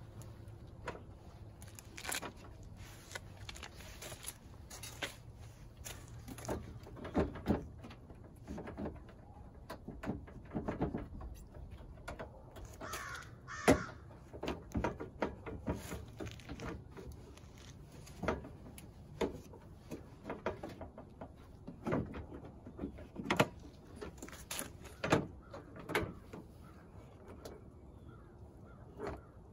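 Scattered clicks and knocks of hands and a tool working a Toyota Tundra's plastic headlight assembly loose from its mounts. A bird calls about halfway through.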